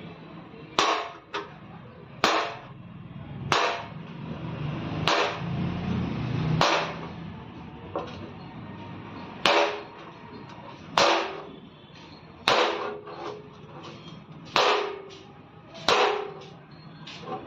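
Hand hammer striking the wheel-arch edge of a car's sheet-metal front fender: about a dozen sharp metallic knocks, roughly one every second or so, some in quick pairs, with a pause of about three seconds midway. It is panel-beating work on the fender's edge.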